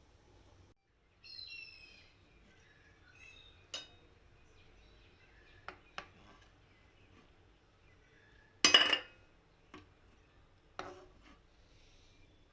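Kitchen dishes and utensils clinking and knocking now and then, with one louder clatter about two-thirds of the way through. A bird chirps a few quick falling notes about a second in.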